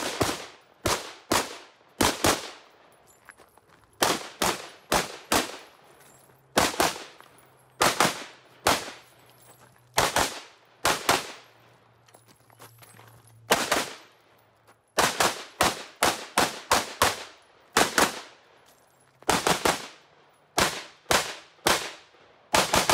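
Rifle shots fired in rapid pairs and short strings of three to five, with pauses of a second or two between groups, throughout.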